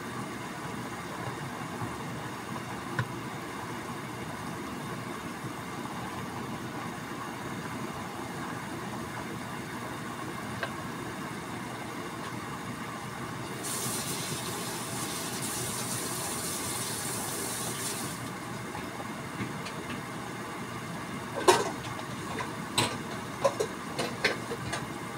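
Water boiling steadily in a stainless steel skillet around chicken franks, a constant bubbling with a stretch of louder hiss about halfway through. Near the end come a handful of sharp pops.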